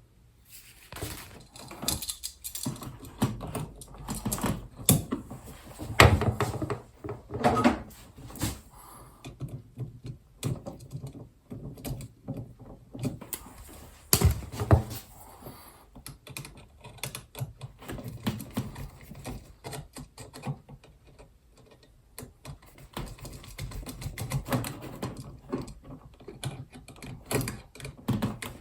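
Irregular clicks, knocks and rustling of hands handling stiff electrical wires and small plastic connectors in a switch box.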